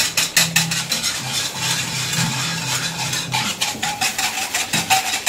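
Wire whisk beating sugar into milk in a metal saucepan, its wires clicking and scraping against the pan about four or five times a second, over a steady low hum.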